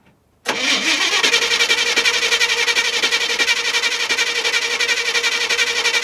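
1969 Chevy C10's engine cranking over on its starter, a steady fast rhythmic churning that begins about half a second in and does not catch, as the long-dormant truck is tried on a little fresh gas poured into its tank.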